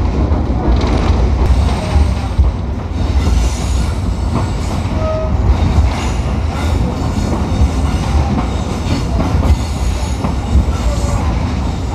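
Moving passenger train heard from beside the carriages: a steady loud rumble of wheels on the track. From about three seconds in, a high, wavering wheel squeal comes and goes, typical of the wheels grinding round a curve on the mountain line.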